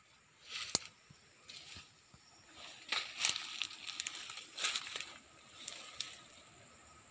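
Irregular close rustling and scraping with a few sharp clicks, from vanilla vine leaves brushing against a hand-held phone and from handling of the phone as it is pushed through the vines.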